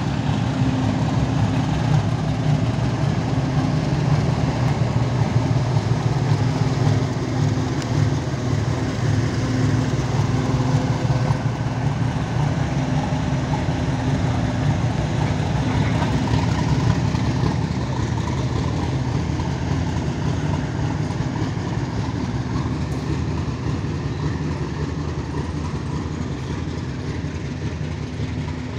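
Diesel locomotive engine running with a steady low drone as it hauls a goods train past. The drone fades over the last third as the freight wagons roll by.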